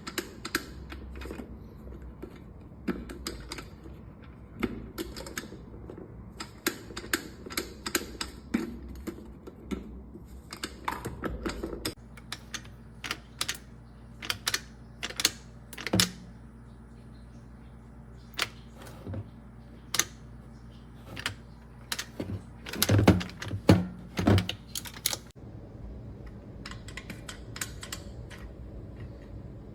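Irregular sharp clicks, taps and knocks of a stainless steel electric kettle being handled, with a few louder knocks in a cluster near the end, over a faint steady hum.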